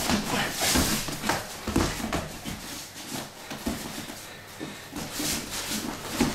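Two wrestlers grappling and shuffling their feet: wrestling boots scuffing and a plastic sheet over the mat rustling and crinkling under them, in an irregular run of scrapes and bumps.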